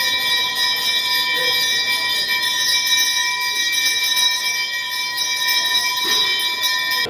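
Temple bells rung rapidly and without pause during aarti, giving one continuous metallic ringing made of several steady tones. It cuts off suddenly at the end.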